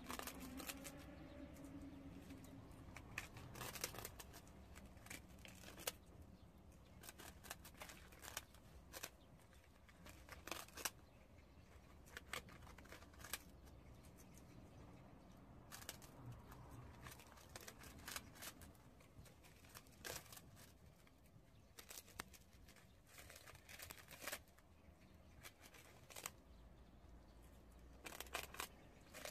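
Prairie dogs gnawing on large puffed rice cakes: faint, irregular crisp crunches and snaps, sometimes in quick clusters.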